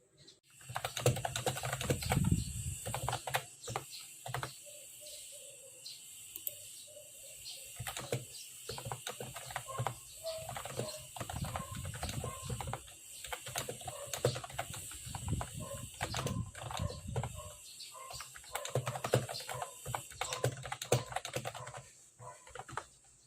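Typing on a Mofii Sweet S keyboard: a rapid, irregular run of key clicks that starts about half a second in and stops near the end.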